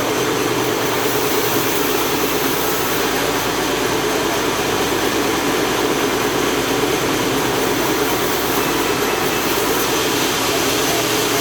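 Chainsaw running steadily under load, ripping lengthwise through a large jengkol log.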